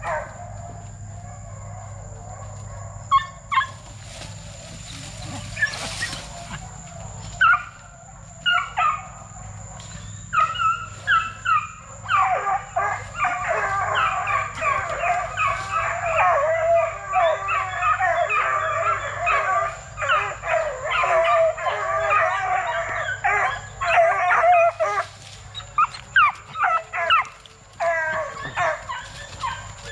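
Several young Plott Tan hounds (Plott hound crossed with black and tan coonhound) barking and howling, with scattered calls at first, then a dense overlapping chorus through the middle, breaking back into separate yips near the end.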